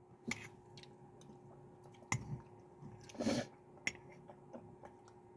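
Faint eating sounds as peppermint ice cream with candy cane pieces is eaten: a few soft clicks and mouth sounds, with a short breathy sound about three seconds in.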